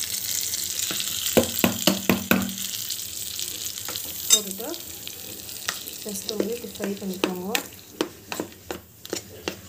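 Hot tempering oil with mustard seeds, curry leaves and green chillies sizzling as it is poured into coconut chutney, the sizzle dying away over the first few seconds, with a quick run of clinks from the pan. Then a spoon stirring the chutney, clinking and scraping against the bowl.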